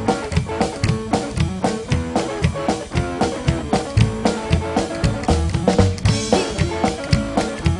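Live rockabilly band playing: upright double bass, drum kit and electric guitar, with a fast steady beat of about four strokes a second. A cymbal crash comes about six seconds in.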